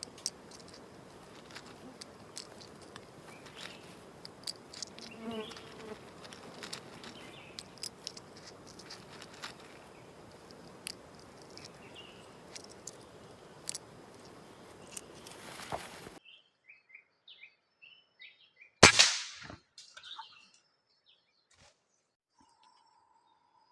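Forest ambience of insects with scattered ticks and small bird chirps, which cuts off abruptly about 16 s in. A few seconds later comes a single loud, sharp shot from a PCP air rifle, followed by a few faint chirps and a short steady whistle near the end.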